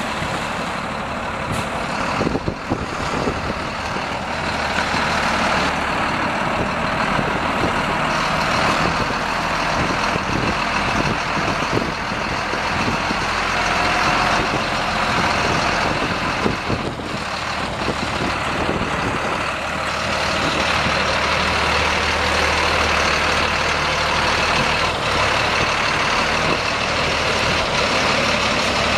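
The Caterpillar 3116 6.6 L six-cylinder diesel engine of a 1997 GMC C8500 dump truck running steadily.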